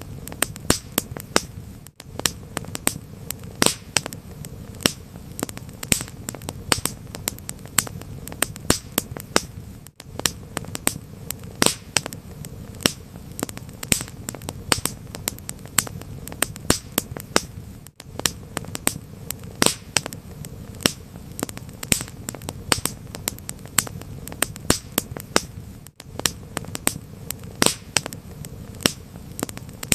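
Wood fire crackling: frequent sharp pops and snaps of uneven loudness over a low, steady background of burning. The sound drops out for an instant every eight seconds.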